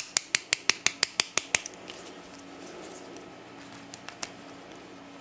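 Bump key in a Master Lock 194D padlock being struck repeatedly: a rapid run of about ten sharp metallic taps, five or six a second, lasting about a second and a half. A few fainter taps follow about a second later.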